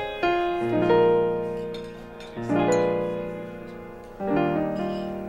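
Background piano music: slow chords struck and left to ring and fade, a new chord every second or two.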